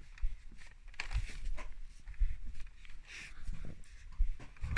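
Scattered soft knocks, bumps and rustling: quiet movement and handling noise while creeping up.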